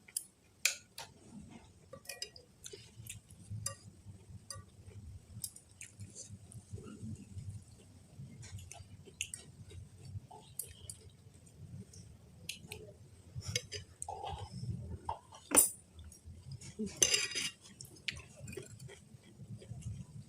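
Eating noodle soup: cutlery clinking irregularly against a bowl, with chewing in between. A sharper knock comes about 15 seconds in, then a brief noisy burst.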